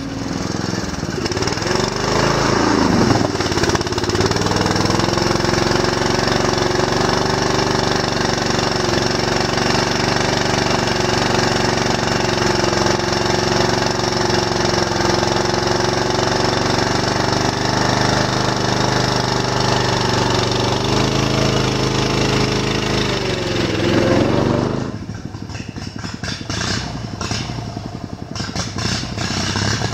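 A riding lawn mower's engine running hard at high, steady revs while it ploughs through a muddy puddle. Its pitch wavers and it falls away sharply about 25 seconds in, leaving a fainter, rapidly rattling engine.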